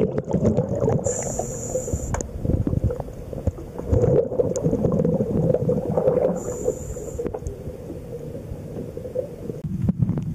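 Underwater sound of a diver breathing through a regulator: a hissing breath about a second in and another about five seconds later, over the steady rumble and gurgle of exhaled bubbles and the small knocks of the camera housing.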